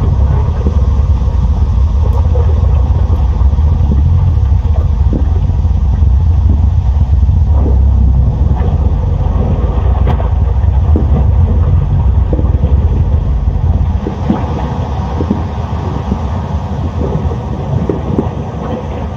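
Volcanic activity: a loud, continuous deep rumble with scattered sharp cracks and pops through it. The deepest part of the rumble falls away about three quarters of the way through.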